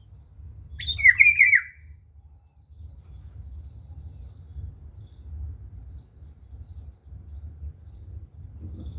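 A bird gives one short, loud call about a second in: a quick run of wavering chirping notes lasting about a second. A faint steady high hiss and a low rumble sit underneath.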